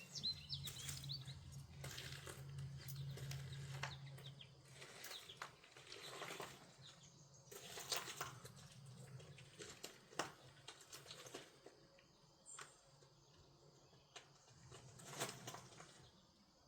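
Quiet waterside ambience: a few faint bird chirps, scattered soft ticks and taps, and a low steady hum that fades out about six seconds in.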